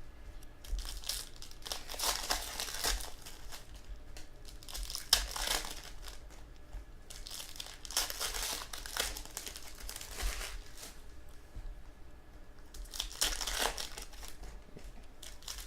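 Trading-card pack wrappers crinkling and cards being handled, in irregular rustling bursts with a sharp click about five seconds in.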